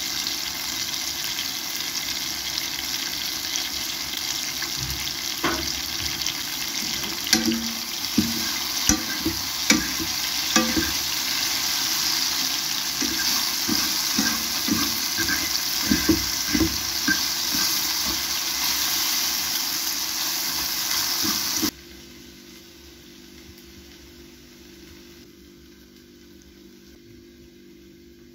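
Sliced mushrooms sizzling in oil in a frying pan, a steady hiss, with a run of sharp clicks and knocks from a utensil stirring against the pan in the middle. The sizzling cuts off suddenly about three-quarters of the way through, leaving only a faint low hum.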